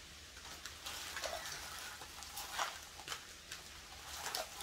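Faint, scattered rustling and light taps of a small packet of prenatal gummies being handled and turned over.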